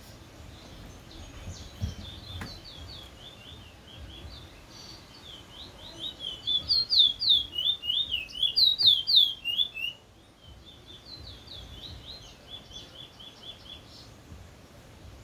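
A small bird singing in rapid runs of short, high chirping notes, with a much louder stretch of quick paired notes in the middle that cuts off abruptly about ten seconds in, followed by softer chirping.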